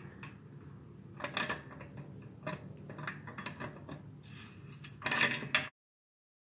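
Metal clinks and clicks of an oxygen sensor wrench and its handle working on an oxygen sensor threaded into a steel exhaust header, coming in several short clusters. The sound cuts off suddenly near the end.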